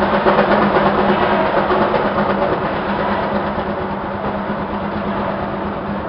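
Old machinery running steadily, with a fast, even clatter over a steady hum, a little quieter in the second half.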